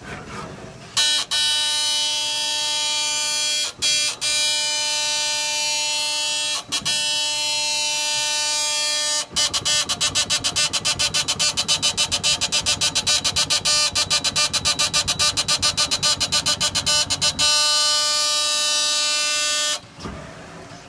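Camalot automated dispenser's gantry motors running with a steady high whine of several fixed tones, cut by a few brief stops. For about eight seconds in the middle the whine turns into a fast stop-start pulsing, about six beats a second, before going steady again and stopping near the end.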